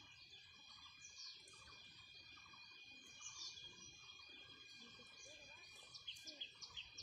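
Faint small-bird chirps and calls over a steady high insect drone. Near the start and again near the end, one bird repeats short chirps about three times a second.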